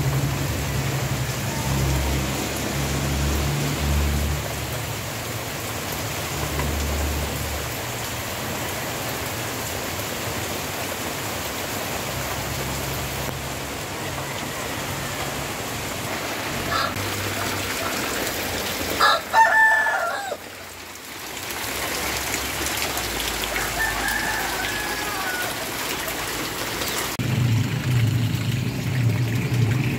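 Steady heavy rain with a rooster crowing loudly about two-thirds of the way in, followed by a fainter call a few seconds later. A low rumble comes in near the end.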